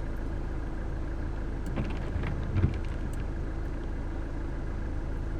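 Steady road and engine noise of a van driving, with a few faint knocks about two seconds in.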